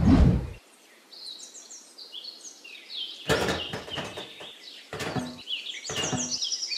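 Birds chirping, with three dull knocks and sand scrapes as a tray is set down into sand and pressed flat: the first and loudest about three seconds in, two more near the end.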